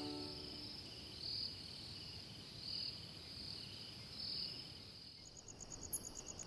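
Crickets chirping at night, faint: a steady high chirring with a louder chirp about every second and a half. Near the end it gives way to a faster, evenly pulsing insect trill, with one short, very high bird note.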